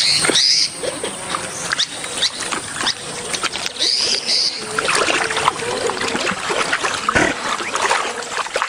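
Giant otters eating fish in the water, with wet crunching and clicking and a short wavering call about halfway through. A great kiskadee calls with short high notes at the start and again about four seconds in.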